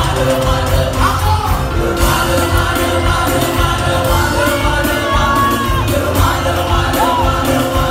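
Loud live worship music played through a PA, with a heavy bass and a steady beat, voices singing, and a few shouts from the crowd.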